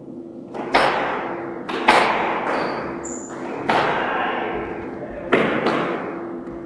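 Squash rally: the ball cracking off rackets and walls about every one and a half to two seconds, several strikes doubled by a quick second hit, each ringing on in the enclosed court. Two short high squeaks of shoes on the wooden floor come in between.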